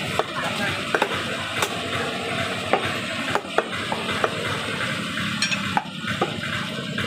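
Butcher's cleaver chopping lamb intestines on a wooden log block: sharp, irregular knocks about one or two a second, over a steady hiss of background noise.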